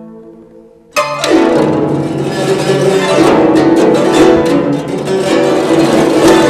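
Solo guzheng being played: a plucked chord rings and fades, then about a second in a sudden loud entry of fast, dense plucking across many strings that keeps going.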